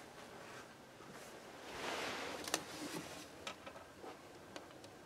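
Quiet room tone with faint rustling and a few light clicks and ticks. The loudest of these is a single sharp click about two and a half seconds in.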